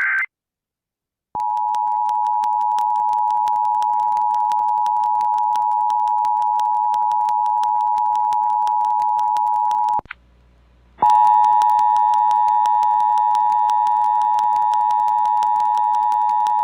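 The tail of an Emergency Alert System SAME header data burst, a brief buzzy screech, is followed after about a second of silence by the EAS two-tone attention signal (853 and 960 Hz together), sounding steadily. The tone cuts off about ten seconds in. After a second of near quiet it starts again, with a slightly brighter edge.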